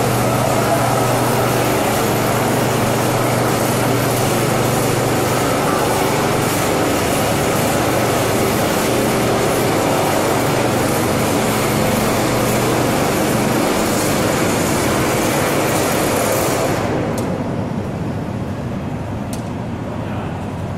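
FDJP-24 walk-behind laser screed with hydraulic drive running steadily as it levels fresh concrete, a constant low engine hum under loud hiss. Near the end the sound turns duller and a little quieter.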